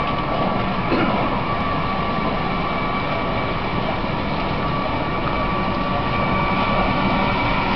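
Ex-London Transport double-deck trolleybus moving slowly over cobbles: a steady high whine from its electric traction motor over the rumble of its tyres.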